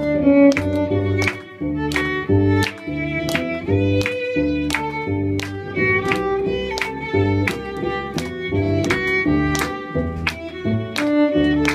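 Violin playing an upbeat melody over a plucked double bass walking line, with hand claps keeping time on the beat about twice a second.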